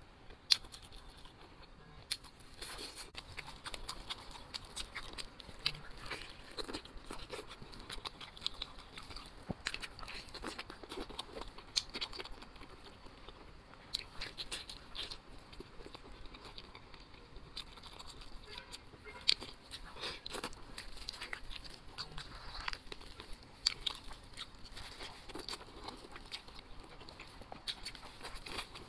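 A person chewing and biting mouthfuls of braised meat pulled from a large bone. Irregular short smacks and clicks come several times a second throughout.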